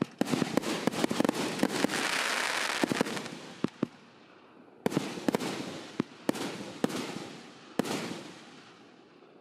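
Firework battery (cake) firing its last shots: a quick run of sharp bangs over dense crackling for about three seconds, then single bangs about a second apart, each trailed by crackle that dies away near the end.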